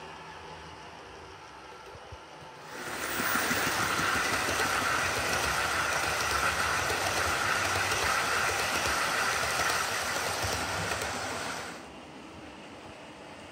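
OO gauge model train running on the track: a steady whirring rumble of motor and wheels on rail. It is faint at first, becomes much louder about three seconds in as the coaches pass close by, and drops back to faint near the end.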